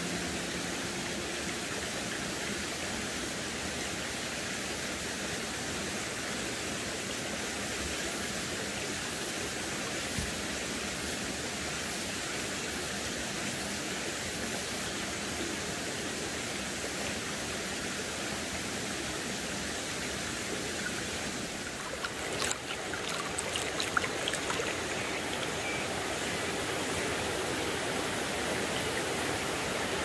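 Shallow mountain stream running over rocks, a steady rush of water. After about twenty seconds, a few faint clicks stand out over it.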